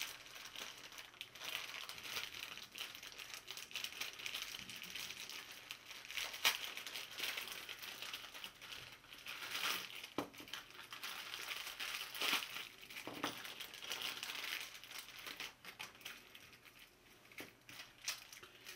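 Small clear plastic bag crinkling and rustling as it is handled and opened, with a few sharp clicks and taps among the rustle.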